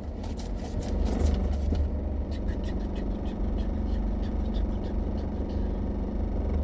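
Car engine idling steadily, heard from inside the cabin as a low hum with faint ticks.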